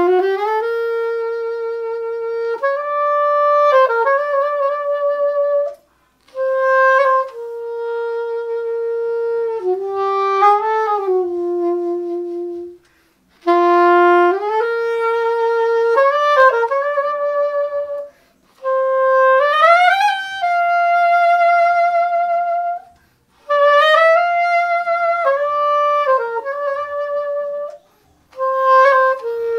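Solo saxophone playing a slow melody in about six short phrases with breath pauses between them, sliding up in pitch into many of the notes (glissando).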